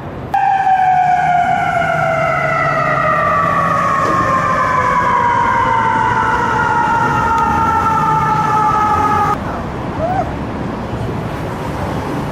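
Emergency vehicle siren sounding one long wail that falls slowly in pitch, starting suddenly and cutting off about nine seconds in, leaving street traffic noise.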